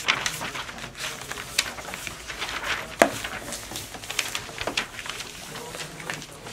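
Paper book pages rustling and being turned, with light knocks of handling on a wooden table and one sharp knock about three seconds in.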